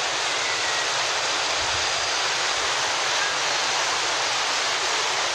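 Muddy floodwater rushing steadily down a rain-swollen concrete canal in a dense, unbroken roar of churning water.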